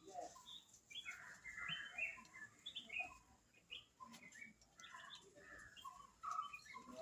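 Small birds chirping, many short quick chirps overlapping throughout.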